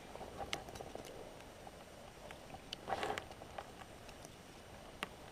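Faint, scattered small clicks and rustles of fishing tackle being handled at a landing net, with a short cluster of louder clicks about three seconds in.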